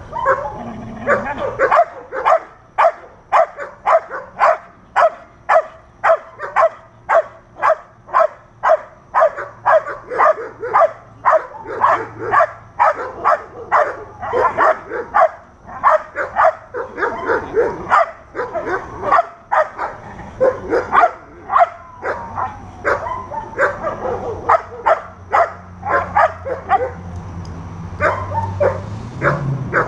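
A dog barking repeatedly at a protection-training decoy, about two loud barks a second, with a short lull about two-thirds through and sparser barks near the end.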